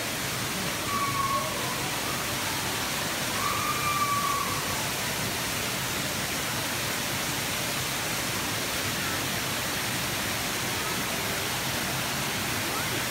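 Steady, even rushing hiss of water running in a greenhouse water feature, with a few faint short whistles about a second in and again near four seconds.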